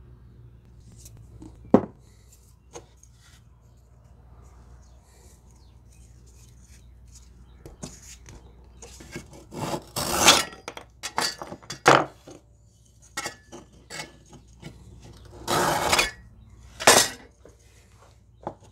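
Fine-toothed hand saw cutting a wooden dowel off flush with a wooden lure blank, in a series of short, uneven strokes through the second half. A single sharp click comes about two seconds in.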